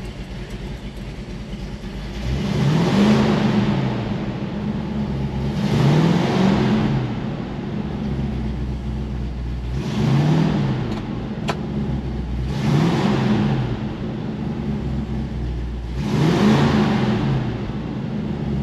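Ford 390 big-block V8 of a 1967 Mustang, idling and blipped up in revs five times, each rev rising and falling back to idle within about a second. The engine is still warming up after a cold start.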